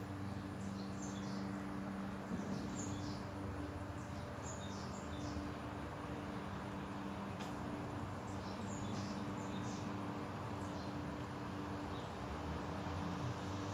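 Birds chirping in short scattered bursts over a steady low mechanical hum.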